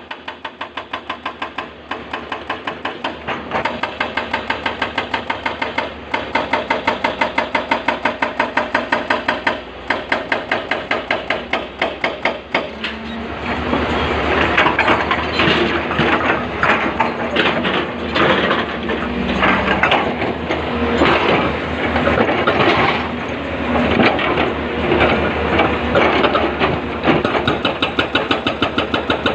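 Excavator working, with a rapid train of knocks at about five a second that becomes louder and more irregular about 13 seconds in.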